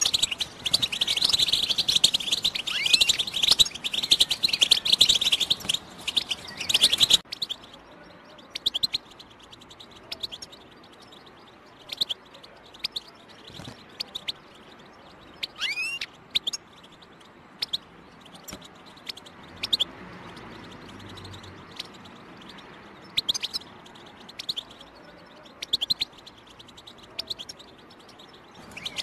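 European goldfinch singing a fast, dense twittering chatter for about the first seven seconds, then giving scattered short chirps and calls with gaps between them, and one sweeping note about halfway through.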